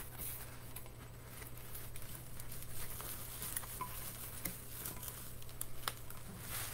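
Faint rustling and light clicks of a skinny tumbler being handled and unwrapped from its packaging.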